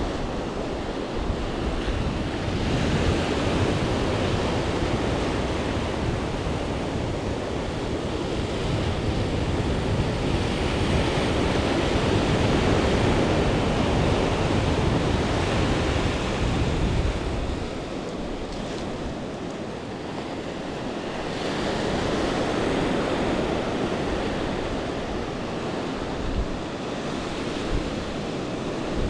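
Small ocean waves breaking and washing up the shore: a continuous rushing wash that swells and ebbs, easing off for a few seconds past the middle.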